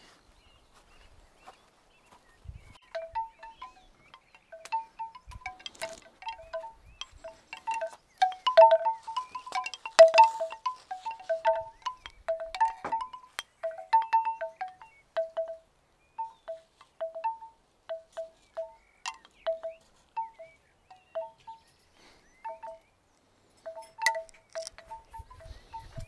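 A chime ringing in short, clear dings on two notes that alternate irregularly. The dings start a few seconds in, come thickest in the first half and grow sparser later.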